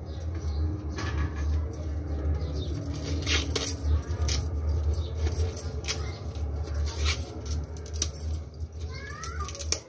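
Green corn husk being torn and peeled off a fresh cob by hand: crisp rustling and tearing with many short snaps and crackles, over a steady low hum.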